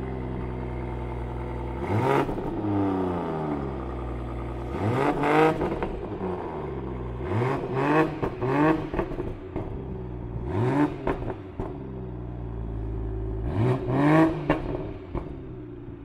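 BMW M240i xDrive Coupé's turbocharged 3.0-litre inline-six idling steadily at the exhaust tailpipes, blipped several times. Each time the revs climb quickly and drop back to idle.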